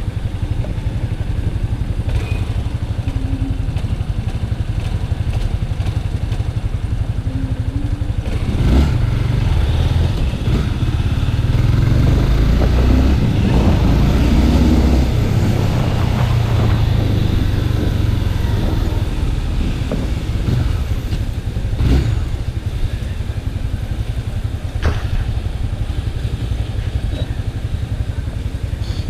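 Honda Twister motorcycle running on the move, a steady low rumble that grows louder for several seconds in the middle, with a few sharp knocks.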